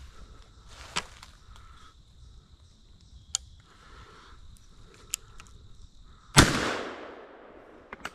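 A single-shot .410 shotgun fired once, about six seconds in: one sharp report that echoes and fades over about a second. A few faint clicks come before it.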